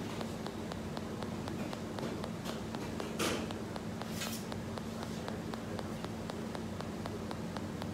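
Steady hum of a commercial kitchen, with its extractor hood and equipment running, under fast, regular faint ticking. Two short hissing noises come about three and four seconds in, the first the loudest.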